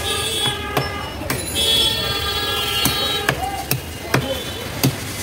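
Heavy knife chopping through a pangas (striped catfish) into steaks on a wooden log block: about five sharp chops, most of them in the second half. Busy market and traffic noise runs underneath, with a held pitched sound over the first two seconds.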